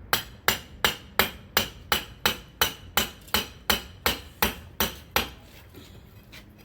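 A hammer striking a steel chisel being driven into the clay wall of a brick-and-clay smelting furnace to break it apart: about fifteen steady, evenly spaced blows, a little under three a second, each with a short metallic ring, stopping about five seconds in.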